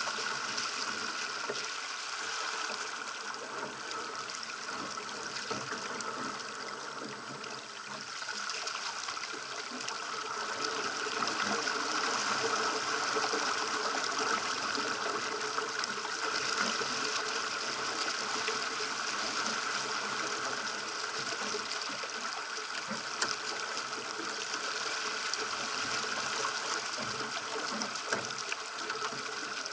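Water rushing and splashing along the hull of a Pacer sailing dinghy under way through chop, a steady wash that grows louder about a third of the way in.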